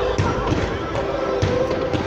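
Fireworks going off with several sharp bangs and thuds, about four or five in two seconds, over the display's musical soundtrack of held notes.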